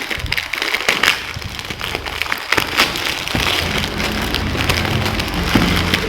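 Plastic packaging crinkling and rustling as it is handled and unwrapped, a dense run of irregular crackles.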